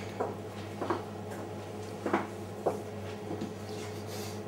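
Handling sounds as butcher's string is pulled and tied around a stuffed turkey leg on the work surface: four short soft knocks, then a brief rubbing hiss near the end, over a steady low hum.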